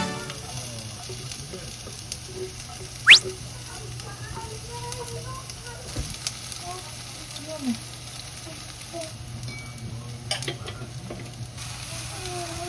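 Food sizzling as it fries in a pan, with a steady low hum underneath. A short, loud, sharply rising squeak cuts through about three seconds in.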